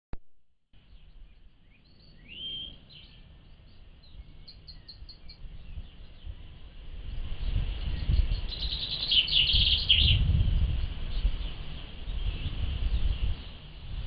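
Wild birds singing and chirping, recorded through a trail camera's low-quality microphone that cuts off the high end of the song. From about halfway through, a loud low rumble comes in and stays on top.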